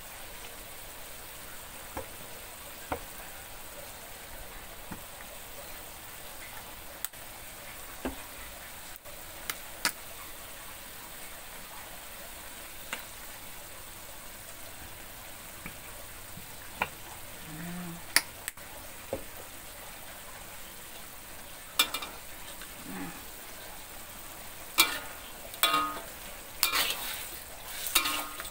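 Broccoli and tofu sizzling steadily in a hot wok, with a few scattered light clicks. Near the end a metal spatula scrapes and knocks repeatedly against the wok as the food is stirred.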